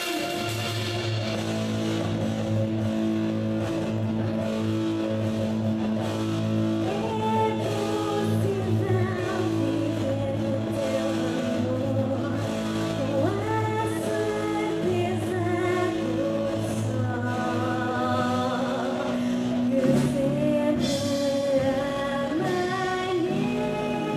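A live rock band plays a song, with electric guitars, bass, keyboard and drums. A woman's lead vocal comes in over the band about seven seconds in.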